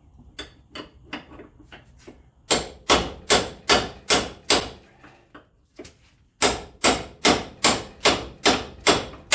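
Hammer blows on steel front-suspension parts of a 2006 Ford Escape, beating to work the ball joint loose: a few light taps, then two runs of hard, evenly paced strikes, about two and a half a second, with a short pause between them.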